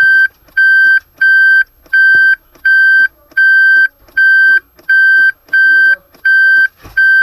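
Reverse-gear warning beeper of a Toyota Avanza / Daihatsu Xenia, signalling that the car is in reverse: a steady run of short, identical, high-pitched beeps, about three every two seconds.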